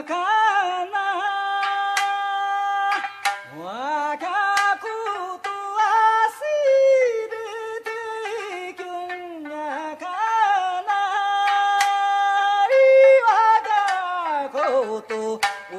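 Background music: a solo voice singing a slow melody of long held notes that slide and waver, with sudden jumps in pitch, and a sharp plucked or struck note now and then.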